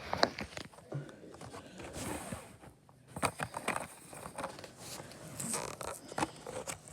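A Hot Wheels blister card being pried open by hand: a string of irregular clicks, crinkles and scrapes from the plastic blister and the cardboard backing.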